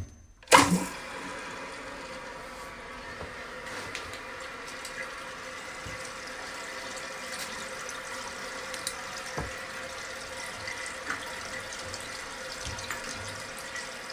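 Water running into a toilet tank through a newly installed fill valve: a loud sudden start about half a second in, then a steady flow with a faint constant tone.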